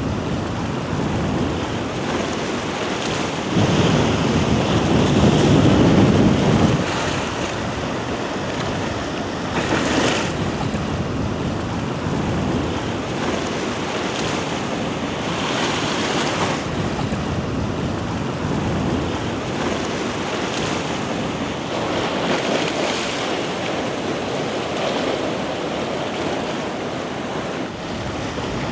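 Sea waves washing onto the shore, with wind blowing on the microphone. The waves surge every few seconds; the loudest and deepest surge comes about four seconds in.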